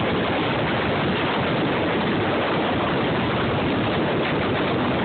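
Steady rush of wind and road noise from a moving car, picked up by a phone microphone held outside the car's window.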